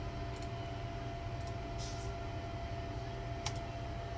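Steady low machinery hum with a thin, steady whine above it. A few short, soft hissy rustles and one sharp click about three and a half seconds in.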